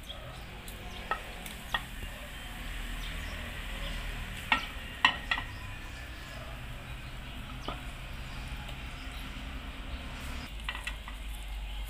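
Pot of chicken broth boiling with a steady bubbling hiss, while a wooden spatula stirs and knocks against the stainless steel pot several times, the sharpest knocks a little after halfway.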